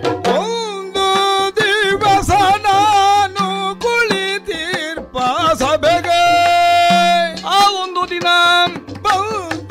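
Yakshagana bhagavata's voice singing a verse in a heavily ornamented, wavering melody, with a long held note about six seconds in, over drum strokes of the maddale and chende accompaniment.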